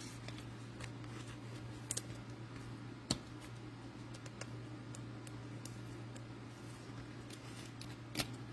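Quiet room hum, steady and low, with scattered small clicks and taps; the sharpest come about two seconds in, about three seconds in, and near the end.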